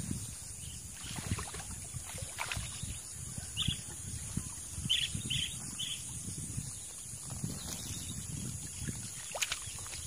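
Water splashing and sloshing in irregular surges as a hooked snakehead thrashes in shallow water while being played and drawn in on a baitcasting rod.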